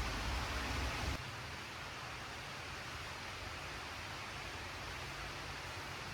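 Low thunder rumble under heavy rain stops abruptly about a second in, leaving a steady hiss of falling rain.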